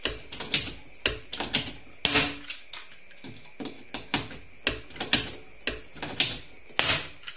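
Hand pop-rivet gun being squeezed repeatedly to rivet the aluminium corner fittings of a flight case: a string of sharp metallic clicks, one or two a second, with louder snaps about two seconds in and near the end.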